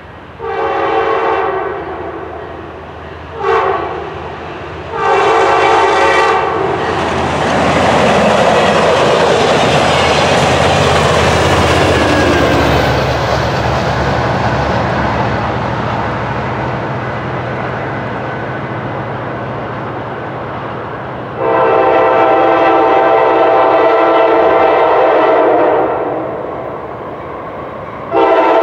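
Diesel locomotive's multi-chime air horn blowing a series of blasts as a train approaches: a long one, a short one, a long one, then a long rushing rumble of the train, then another long blast and the start of one more near the end.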